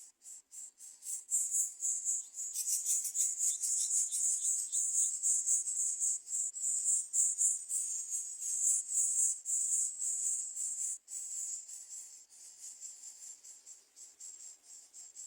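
Crickets chirping: a rapid, high-pitched pulsing trill that is loudest through the middle and fades to a weaker trill for the last few seconds.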